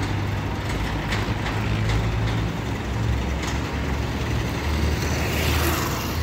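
Diesel engine of a pick-and-carry mobile crane running steadily, with a short hiss near the end.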